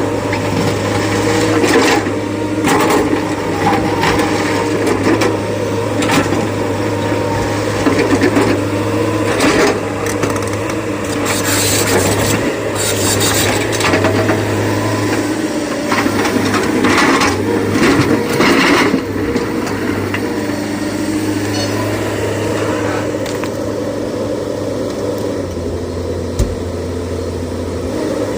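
Diesel engine of a working SANY excavator running steadily, with several short bursts of scraping and clattering.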